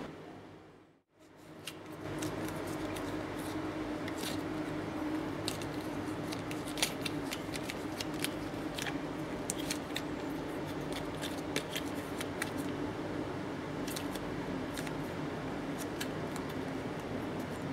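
Thin printed card of a paper-craft model handled and folded by fingers: scattered crisp clicks and crinkles over a steady background hiss. The background drops away briefly about a second in.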